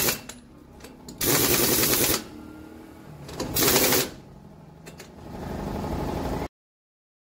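Pneumatic impact wrench hammering on a truck's wheel nuts in short bursts. One burst ends just after the start, a second lasts about a second, and a shorter one comes near the middle. Quieter noise lies between the bursts, and the sound cuts off suddenly about six and a half seconds in.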